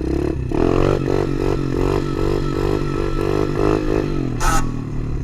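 Small single-cylinder pit bike engine running and pulsing on and off the throttle about three times a second, with a short noisy burst a little past four seconds in.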